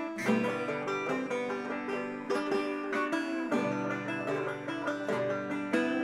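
Background instrumental music in a bluegrass style, with quickly plucked banjo and guitar.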